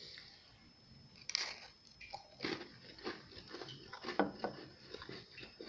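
Someone chewing a bite of a chocolate alfajor with hard cookie layers: irregular crunching and crackling, loudest about a second and a half in and again around four seconds.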